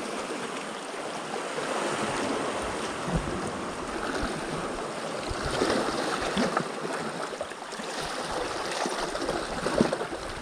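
Small waves washing at the shoreline, a steady wash of water noise with wind on the microphone and a few faint knocks.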